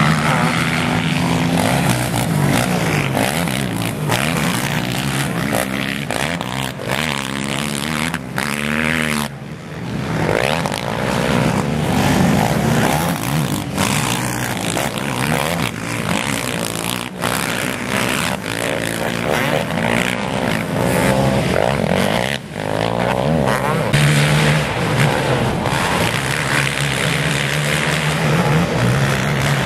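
Racing ATV engine revving up and easing off over and over, its pitch rising and falling, with a short drop in level about ten seconds in.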